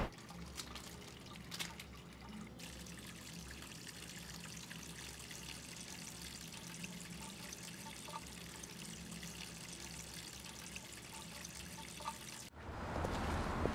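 Faint trickle and drip of water at a kitchen sink, with small ticks over a quiet, steady room hum. Near the end, louder street noise cuts in abruptly.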